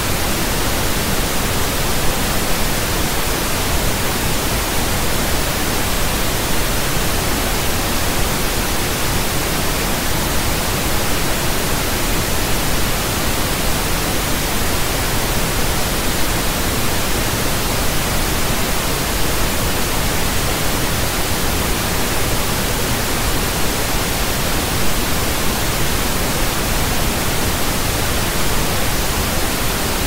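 Steady, unchanging pink noise: an even hiss spread across all pitches, with no tones, clicks or breaks.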